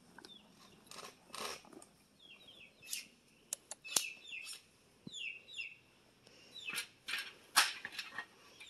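Small birds chirping in short falling notes, with scattered sharp knocks and rustles in between; the loudest knock comes near the end.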